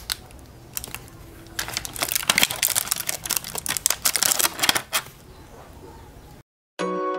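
Rapid clicking and crackling of small plastic parts and packaging being handled, heaviest in the first five seconds and then fading. Near the end the sound cuts out abruptly, and chime-like music starts.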